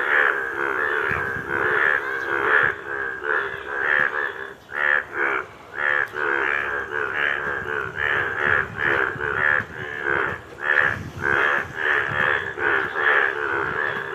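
Frogs calling: a dense run of repeated, overlapping croaks with short breaks between bursts.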